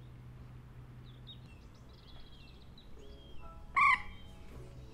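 Wild birds calling: faint high chirps in the first half, then one loud, short call about four seconds in.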